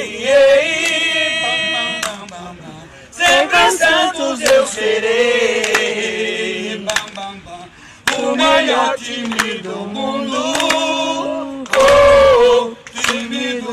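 Male voices singing a Santos FC supporters' song without instruments, in long held phrases with short breaks about two to three seconds in and again about eight seconds in.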